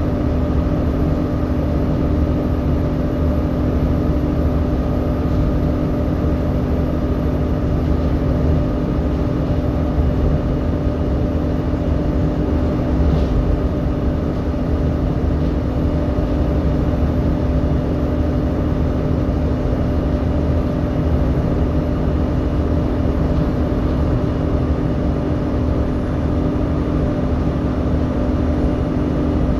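Volvo B7TL double-decker bus heard from inside the saloon while driving: a steady whine from its engine cooling fan over the engine drone, holding an even pitch throughout.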